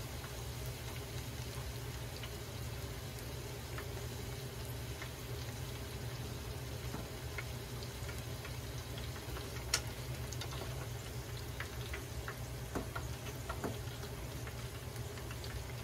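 Pieces of karaage chicken deep-frying in a pan of hot oil: a steady sizzle with scattered small pops and ticks over a low steady hum, with one sharper tick about ten seconds in.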